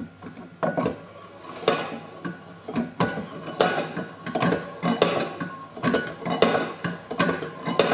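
Stainless steel wire being wound into a coil on a hand-turned mandrel. It gives a sharp metallic tick with a short ring on every turn, about one to two a second and a little uneven. A tick on each turn is what the winding should make.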